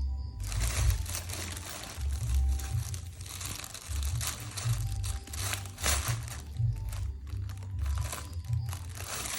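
Plastic bag crinkling and rustling in irregular bursts as a cat moves about inside it, over background music with a low pulsing beat.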